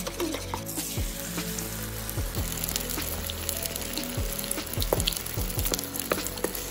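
A wire whisk beating eggs in a bowl briefly, then beaten eggs sizzling in a hot frying pan, with a wooden spatula scraping and stirring them as they set.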